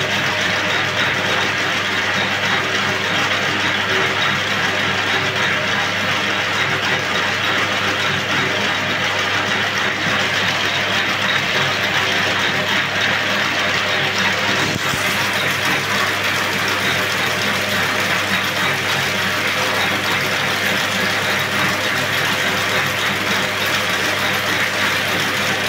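Bobbin braiding machine running steadily, a continuous clatter of its gears and of the thread carriers circling the track as it braids silk thread into cord.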